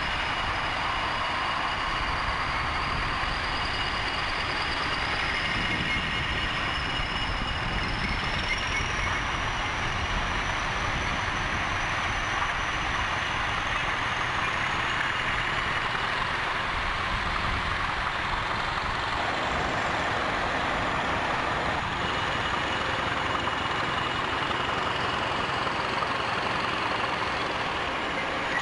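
British Rail Class 20 diesel locomotive running as it moves slowly, its English Electric eight-cylinder engine giving a steady beat with a thin high whistle over it that rises gradually in pitch.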